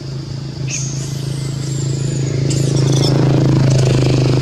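A steady engine hum, growing louder over the last couple of seconds, with a few short high chirps over it in the first half.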